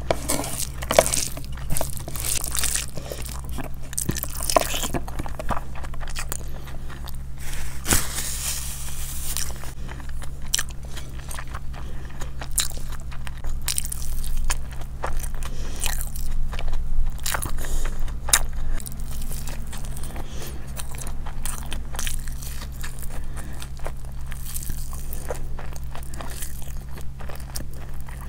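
Close-miked chewing and biting of food, with irregular crunching and soft mouth clicks, over a steady low hum.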